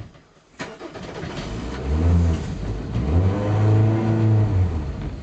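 Boat engine being started on a cold morning: it cranks, catches about two seconds in and revs up twice, running unevenly, then dies away near the end. A hard start on an engine with a fuel-supply problem.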